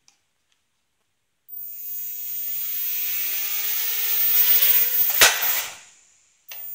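JJRC 1000A mini quadcopter's motors and propellers spinning up with a whir and a rising whine, growing louder, then a sharp knock about five seconds in as the quadcopter hits something, and the motors wind down. A brief burst of motor whir starts again near the end.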